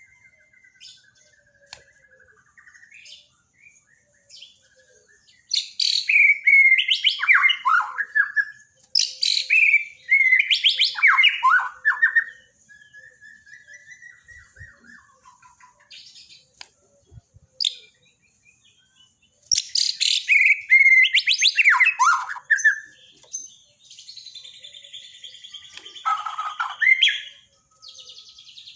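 White-rumped shama (Bornean murai batu) singing: loud, varied whistled phrases in four bursts, with soft twittering between them.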